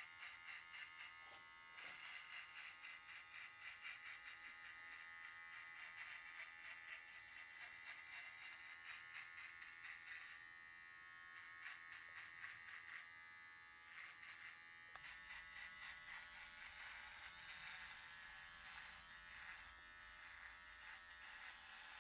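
Cordless hair trimmer with its blade set at zero, buzzing steadily as it cuts a line along the hairline.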